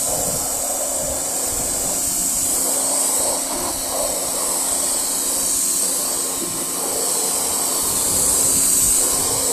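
Electric pressure washer spraying its water jet on the fan setting onto timber decking: a loud, steady hiss of spray over a low hum from the pump.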